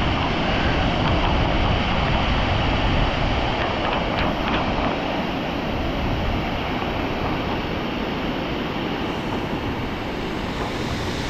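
Steady rush of the Dynjandi waterfall's falling water, with wind rumbling on the microphone.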